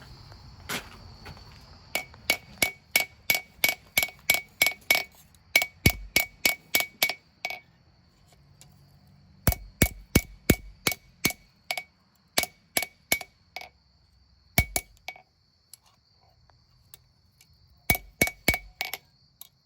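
Hammer striking a knife blade on an anvil in three quick runs of light blows, about three a second, each blow with a short metallic ring: the blade being tapped straight and flat. Crickets chirp steadily in the background.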